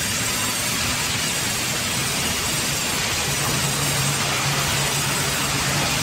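Large band saw running and cutting through a timber log, a steady hiss of sawing. A low steady hum joins about three seconds in.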